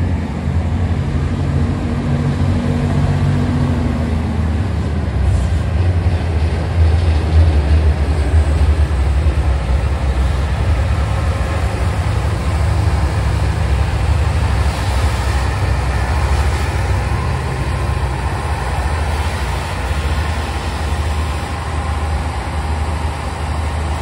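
Alicante tram running along the line: a steady low rumble with running noise, and a faint hum in the first few seconds.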